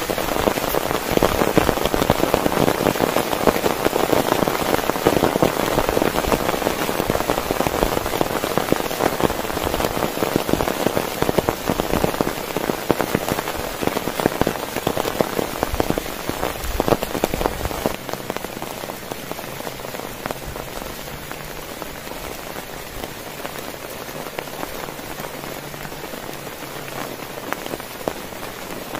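Heavy rain falling on a tent, a dense patter of drops hitting the fabric. It eases a little about two-thirds of the way through.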